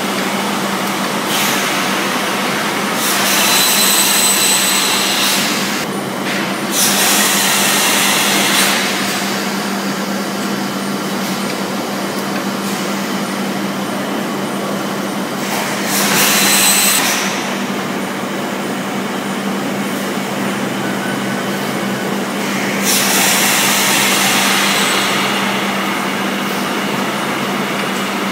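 Automatic weigh-labelling line for 20 kg cheese blocks running: a steady machine hum over a constant noise. Four loud hisses of compressed air break in, each one to two seconds long.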